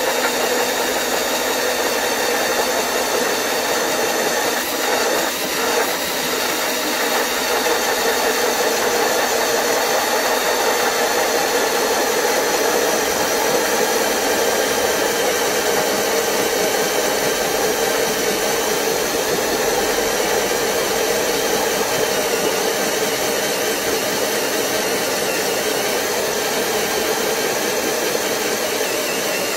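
Power drill running steadily with a small hole-saw bit grinding through a hard white dish, a continuous whirring and grinding.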